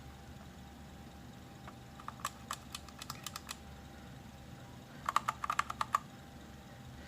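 Typing on an Anne Pro 2 mechanical keyboard: two short bursts of key clicks a few seconds apart, the second louder and quicker.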